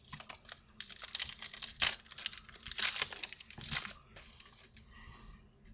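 Hockey card pack wrapper crinkling and tearing as a pack is opened by hand, with sharp crackles loudest about two and three seconds in, then a fainter rustle of handling near the end.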